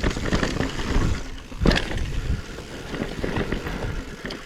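Mountain bike rolling fast over rocky singletrack: tyre and trail noise with chain and frame rattle, and one loud thump about one and a half seconds in as it hits a rock.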